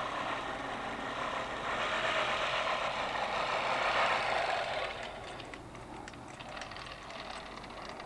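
Manual push reel mower's spinning blades whirring as it is pushed across the lawn. The whirr is loudest around four seconds in, then fades after about five seconds, leaving faint ticks.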